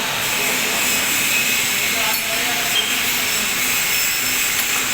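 Workshop machinery running with a steady, loud, hiss-like whir.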